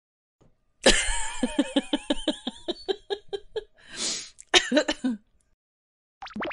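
A laughing sound effect: a run of quick, rhythmic laugh bursts, about five a second, with a harsh breathy burst partway through.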